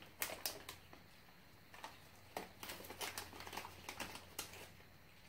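Plastic snack bag of Regent sweet corn puffs crinkling in short crackles as a hand rummages inside to take out a puff: a few near the start, then a longer run of crackles from about two and a half seconds in.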